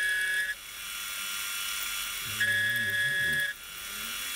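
Milling machine spindle running with an end mill facing the end of metal bar stock to length. A steady high whine from the cut stops about half a second in and returns for about a second in the middle, as the cutter passes across the work twice.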